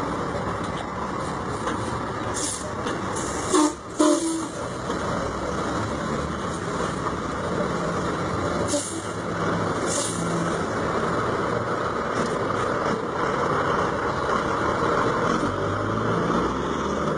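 Heavy truck's diesel engine running steadily as the tractor and tipper semi-trailer manoeuvre at low speed, with a few short hisses and two brief louder sounds close together about four seconds in.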